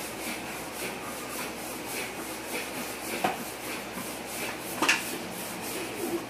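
Hand-operated stand-up air pump being pumped over and over, each stroke a rasping rush of air as it inflates an inflatable swimming pool. Two sharper knocks stand out, about three seconds in and about five seconds in.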